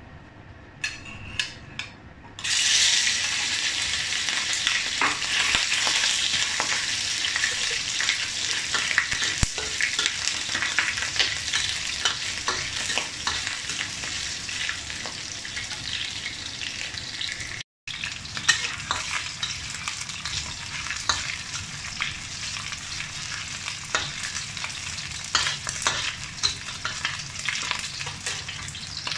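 Slices of pork belly sizzling in a hot iron wok while a metal ladle stirs them, clicking and scraping on the pan. A few knocks come first, then the sizzle starts suddenly a couple of seconds in and carries on loud and steady. It breaks off for an instant about two-thirds of the way through.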